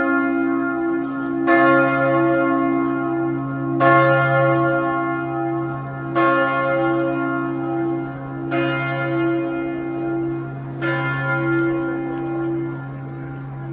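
Church bells ringing: a bell strikes five times, about every two and a quarter seconds, each stroke ringing out and fading, over the steady low hum of the larger bells.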